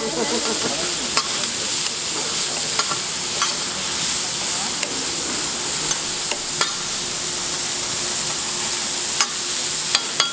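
Pork belly sizzling steadily on a large iron griddle plate, with about nine sharp irregular clicks through it.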